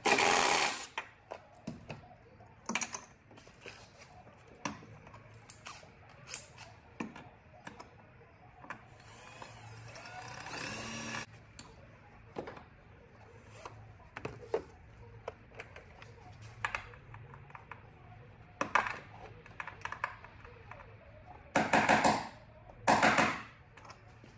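Cordless drill boring pilot holes through the car's sheet-metal firewall in short runs: a brief burst at the start, a run of about three seconds in the middle that grows steadily louder, and two loud bursts near the end. Clicks and taps of the tool being handled and repositioned come in between.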